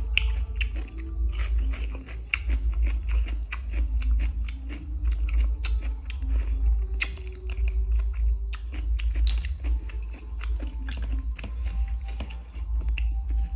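Close-up chewing of crunchy green papaya salad, a dense run of irregular wet crunches and sharp clicks, over a steady low hum.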